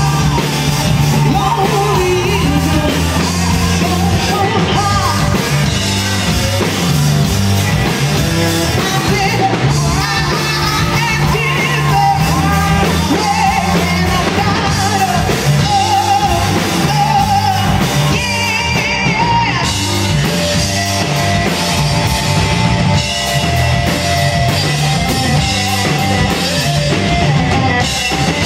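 Live rock band playing loud: a woman singing lead over electric guitars and a drum kit.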